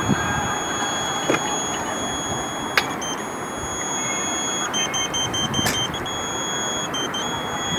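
Steady high-pitched electronic tone that breaks into rapid short beeps about five seconds in, over a steady background hiss, with a few sharp clicks.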